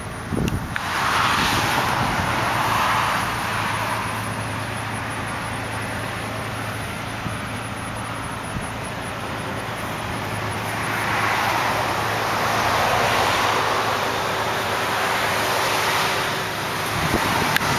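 Road traffic passing by: two vehicles each swell up and fade away over a few seconds, one early and one later. Underneath is the steady low hum of the 1991 Chevrolet S10 pickup's engine idling.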